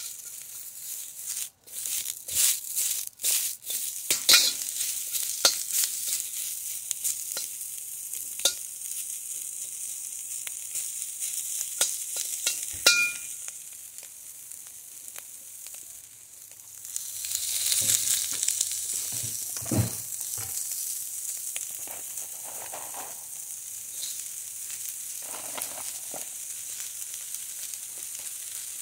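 Broccoli stir-frying in a hot wok: a steady sizzle, with the metal spatula scraping and clinking against the pan in the first few seconds. The sizzle swells more than halfway through as chopped cabbage goes in.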